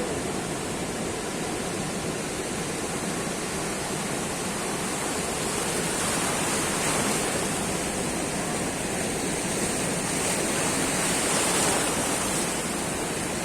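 Rough sea surf rushing continuously, a steady wash of water noise that swells gradually and eases off a little shortly before the end.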